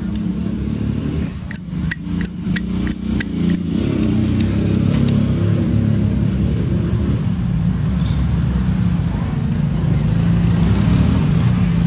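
Steady low rumble of passing motor traffic. Early on there is a quick run of about seven sharp clicks over two seconds, from something being handled.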